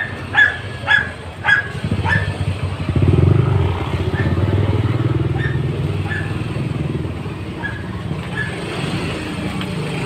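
A dog barks sharply about five times in quick succession, then fainter barks come now and then. From about three seconds in, a motorcycle engine runs steadily.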